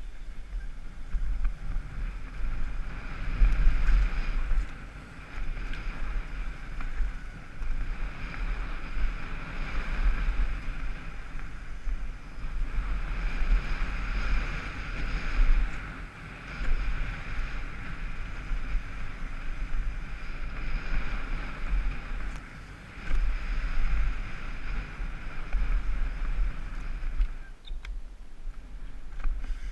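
Wind buffeting a helmet-mounted camera's microphone, over the rolling noise of a downhill mountain bike's tyres on a dirt trail. The rush rises and falls with the riding.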